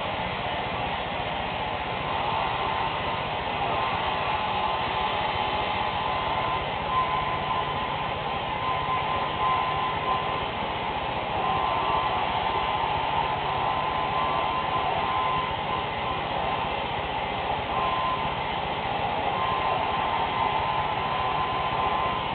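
Handheld hair dryer running steadily: a continuous rush of air with a thin steady whine, its loudness wavering slightly as it is moved around the head.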